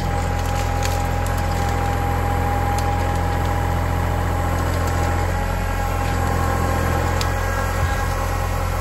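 Kubota L3901 tractor's three-cylinder diesel engine running steadily, with a thin steady whine over its low drone.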